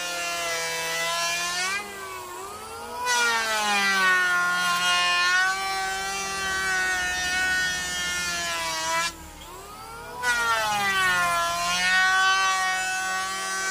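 Electric hand planer whining steadily as it shaves across a wide wooden board, with a hiss of cutting under the motor's tone. Twice, about two seconds in and again about nine seconds in, the cutting hiss drops out for about a second and the whine swings up and back down in pitch, as the planer comes off the wood between passes and then bites again.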